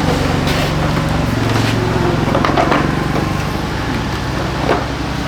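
Scooter engine running steadily at idle, with a few light knocks and taps over it.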